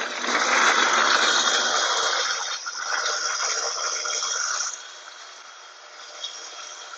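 Vitamix blender running at speed, whirring through a liquid mix of eggs, water and dragon fruit powder; about two-thirds of the way through its sound drops to a much quieter level.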